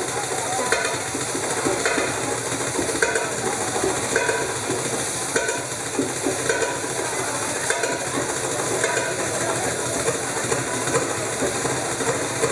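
Rhythmic percussion music for a belly dance drum solo, recorded with heavy hiss and distortion, with a regular accent about every second and a quarter.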